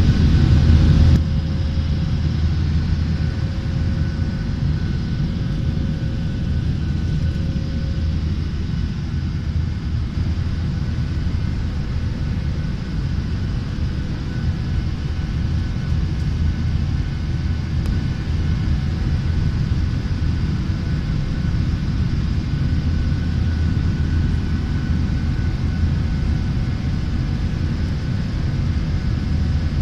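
Jet airliner cabin noise in flight: a steady low rumble of the engines and rushing air, heard from inside the passenger cabin, slightly louder for about the first second.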